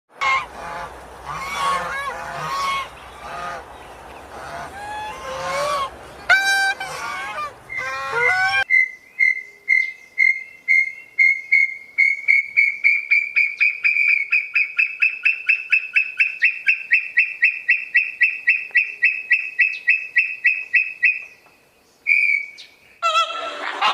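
Geese honking, several calls bending in pitch over a low background rumble. After a cut, a long run of rapid, evenly spaced high-pitched bird calls, about four to five a second, which stops shortly before a new burst of calls near the end.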